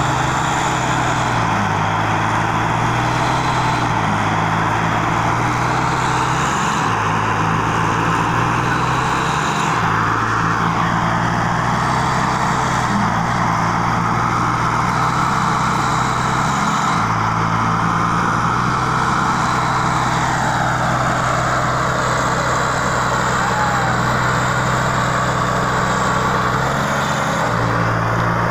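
Two diesel tractor engines, a Mahindra Arjun and a New Holland, running hard under load as they pull against each other on a chain. The engine note dips and recovers several times as the load shifts.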